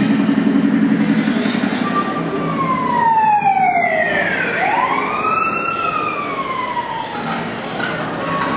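Electronic tones from a sound-art installation: a low rapid buzz at first, then a siren-like pitch that slides down, swoops back up about halfway through and slowly falls again.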